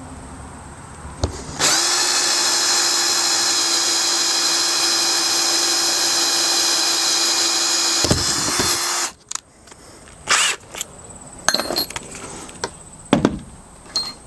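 Cordless drill with a Forstner bit boring a hole through the thick plastic wall of an EarthBox planter: the motor runs at a steady pitch for about seven seconds, then stops suddenly. A few short knocks and clicks follow.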